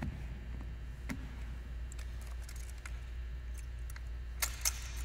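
Rifles being handled in drill movements: faint scattered clicks and light metallic clinks, then two sharp clicks close together near the end, over a steady low hum.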